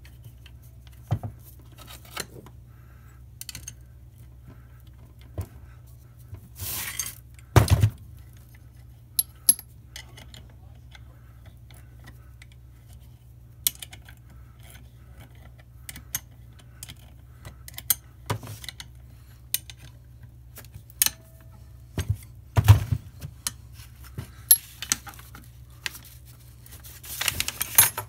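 Irregular metal clinks, taps and knocks as tools and parts are handled against a brake-lathe disk feed gearbox during assembly, with hex-key work on its housing bolts and a few short scrapes. The loudest knocks come about seven and a half and twenty-two seconds in, over a steady low hum.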